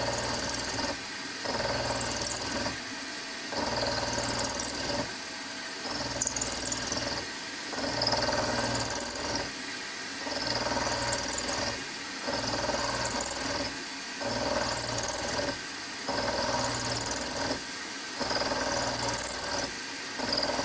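Milling machine end mill pecking into a connecting-rod blank. The spindle runs throughout while the cutter plunges in and backs out about once every two seconds, and each plunge brings a louder, high-pitched cutting noise.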